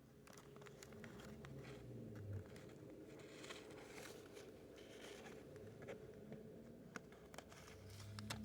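Near silence: a faint low hum with a few light clicks and rustles scattered through it.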